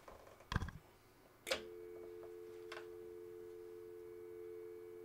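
A knock about half a second in, then a click as the handset of a rotary telephone is lifted off its cradle, and a steady two-tone dial tone comes on and holds.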